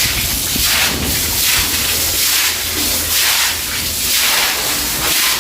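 Broom bristles scrubbing a wet floor with water, in repeated back-and-forth strokes.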